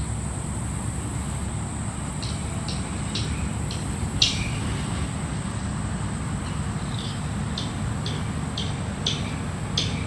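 Steady low rush of wind and flowing river water, with a steady high insect drone above it. From about two seconds in comes a string of short sharp ticks, a few every second, the loudest about four seconds in.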